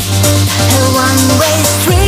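Electronic dance music: a break without the kick drum, carried by a steady bass and a synth melody, with the kick drum coming back right at the end.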